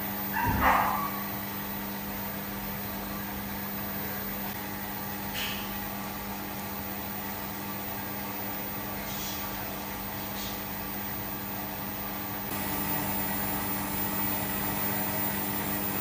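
Induction gold-melting furnace running: a steady electrical hum made of several even tones, while the metal charge in its crucible melts down. A short louder sound comes just under a second in, and the hum grows a little louder near the end.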